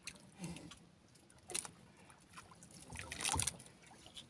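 Faint water sounds at the side of a small boat: trickling and light splashing, with a few short knocks and clicks, the loudest cluster about three seconds in.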